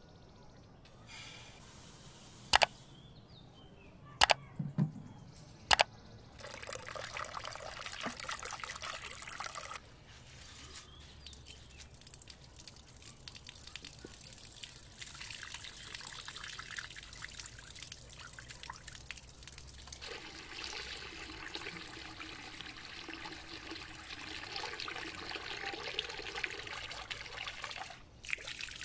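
Tap water running and trickling into a terracotta bowl as rice is washed by hand and swirled in it. Three sharp knocks come in the first few seconds, before the water starts.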